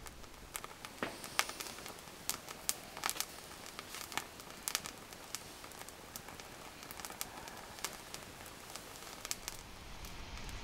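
Esbit solid-fuel tablet burning under a pot of water at about 209 °F, just short of the boil: faint scattered crackles and ticks over a low hiss.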